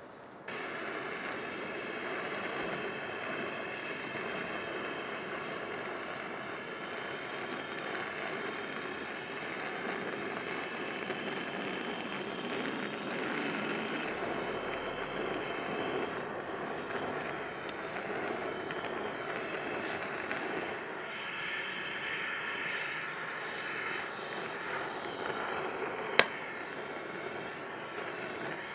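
A woodworking power tool running steadily, starting about half a second in, with one sharp click near the end.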